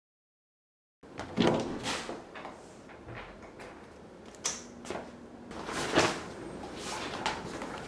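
A second of silence, then footsteps in house slippers on the floor at a bathroom doorway, with a few irregular soft knocks and clicks, the loudest about six seconds in.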